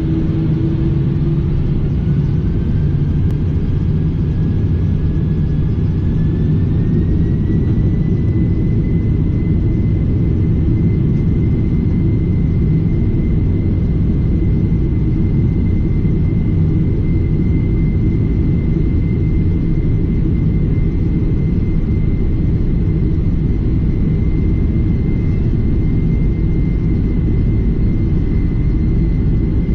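Jet airliner's turbofan engines at takeoff thrust during the takeoff roll, heard from inside the cabin. A steady loud rumble runs under a fan whine that climbs in pitch over the first several seconds as the engines spool up, then holds steady.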